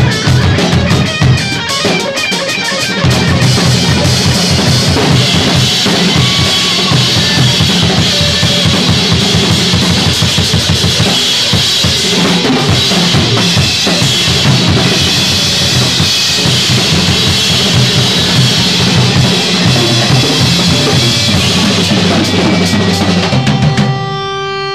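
Drum kit played busily: bass drum, snare and toms under a constant wash of cymbals, with electric guitar in the mix. Near the end the drums stop and a sustained guitar note rings on.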